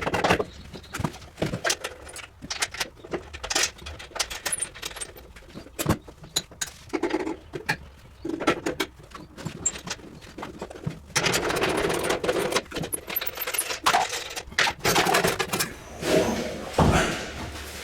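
Metal clinking and knocking from hand work on a walk-in refrigerator's indoor unit as its fan is taken off, many short sharp knocks with a longer stretch of rough rattling and scraping about eleven seconds in.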